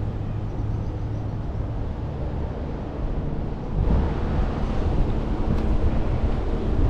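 Wind rumbling on the microphone, a steady low noise that gets a little louder about four seconds in.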